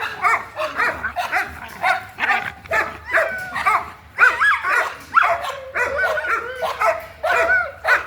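Two young American Pit Bull Terriers play-fighting, giving a fast, continuous run of short yips, barks and whiny play growls.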